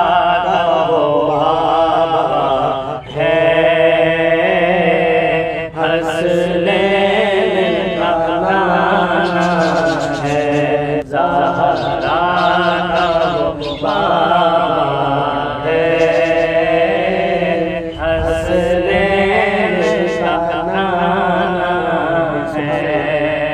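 A man reciting a naat, an Urdu devotional poem in praise of the Prophet, in a chanted melody. He sings long, drawn-out phrases, with a short break for breath every few seconds.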